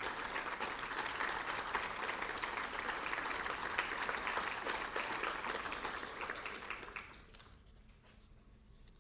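Audience applauding, the clapping fading out about seven seconds in.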